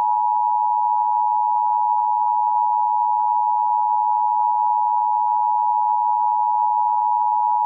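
Emergency Alert System attention signal: the two-tone 853 and 960 Hz alarm, held steady and loud. It announces a broadcast emergency alert, here a flood alert.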